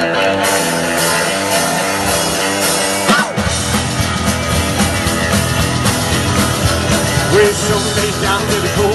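Rockabilly band playing live, an instrumental stretch with slapped upright bass, drums, acoustic rhythm guitar and electric guitar. About three seconds in there is a brief break, then the band comes back in fuller.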